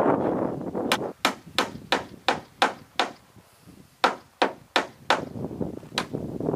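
Hand hammer driving nails into wooden roof sheathing: sharp separate blows about three a second, a run of about seven, a short pause, then about five more. A rushing noise comes before the first blow.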